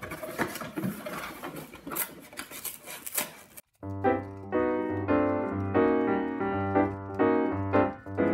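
Cereal-box cardboard pulled apart by hand at its glued side seam: crackling and rustling with small tearing clicks. After about three and a half seconds it cuts off suddenly, and background keyboard music with a bass line takes over.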